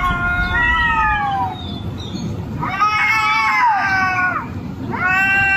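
A cat yowling: three long, drawn-out meows, each dropping in pitch at the end.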